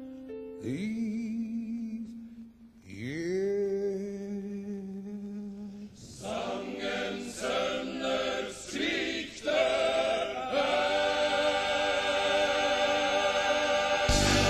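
Men singing a cappella: a single male voice sings long notes that swoop up into pitch, then a male choir joins in with short chords and settles into a long held chord. A sudden loud burst of noise cuts in at the very end.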